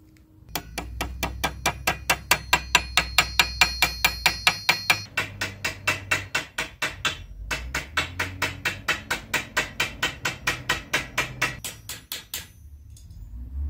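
Rapid, even chopping strikes on a cutting board, about four a second, with a short break about seven seconds in.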